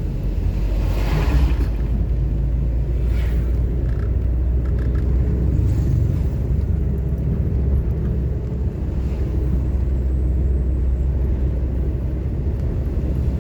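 Car running on the road, heard from inside the cabin: a steady low engine and road drone, with a brief rush of noise about a second in.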